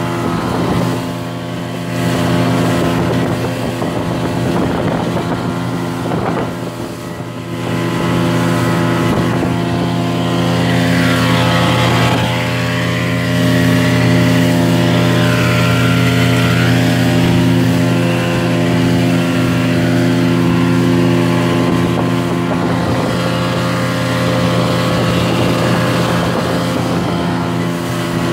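Small motorboat's engine running steadily under way, an even droning note.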